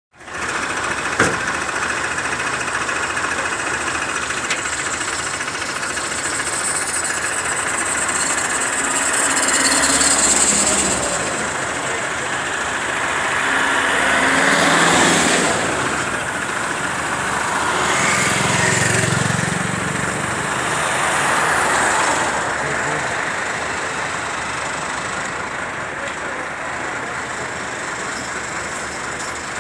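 Bus engine and road noise heard from inside a bus moving slowly, with a sharp knock about a second in.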